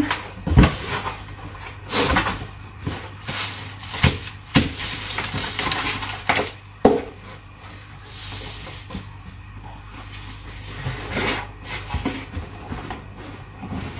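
Cardboard box flaps, a cardboard sheet and bubble wrap being handled: irregular rustling and crinkling with several sharp knocks of cardboard.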